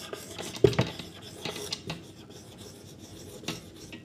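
Dry-erase marker writing on a whiteboard: a run of short, irregular rubbing strokes as letters are written.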